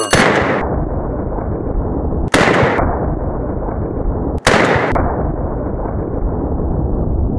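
Three rifle shots from a long-barrelled AR-15, about two seconds apart. Each is a sharp crack followed by a low rumble that carries on between the shots.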